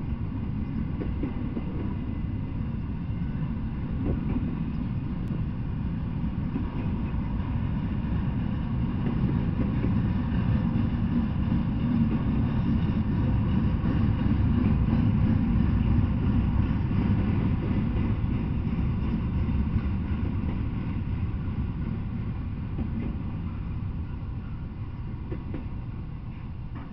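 Intermodal freight train of double-stacked containers rolling past: a steady low rumble of wheels on rail, loudest about halfway through and fading as the last cars go by near the end.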